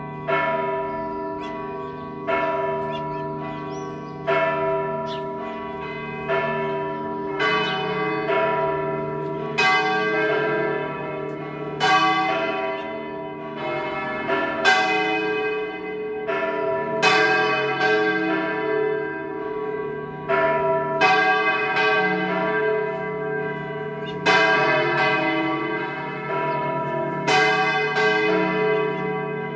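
Several large church bells in the Giralda, Seville Cathedral's bell tower, ringing together in a peal to call to a service. Sharp strikes come every second or two and overlap, their tones ringing on over a steady low hum from the bigger bells.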